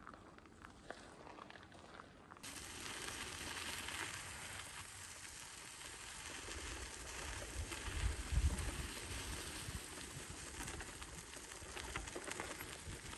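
Outdoor ambience with no speech: a steady airy hiss that starts suddenly about two seconds in, with irregular low rumbles of wind on the microphone, strongest a little past the middle.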